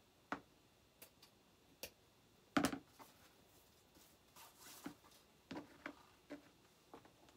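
Ribbon and a wooden craft cutout being handled on a worktable: scattered light taps and clicks, the loudest a knock about two and a half seconds in, with a short rustle of the ribbon a little later.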